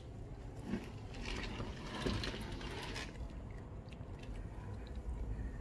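Faint low background rumble with a few soft clicks and rustles, a little louder about two seconds in.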